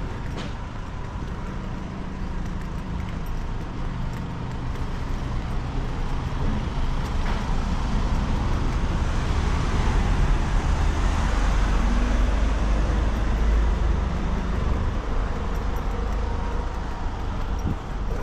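Motor vehicle engine and traffic rumble, a deep steady noise that grows louder to a peak around the middle and then fades, like a vehicle passing close by.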